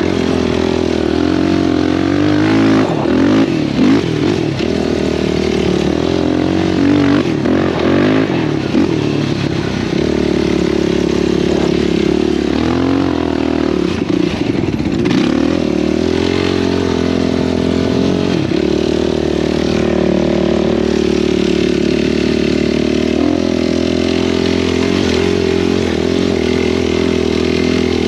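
Sport ATV engine running hard while riding. Its pitch rises and falls with the throttle for most of the first two-thirds, then holds steadier from about two-thirds of the way in.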